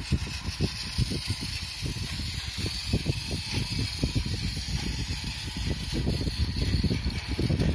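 Battery-powered Thomas toy train running on blue plastic toy track, its small motor whirring under a steady, uneven clicking and rattling of the wheels and wagons over the track joints. It grows a little louder near the end.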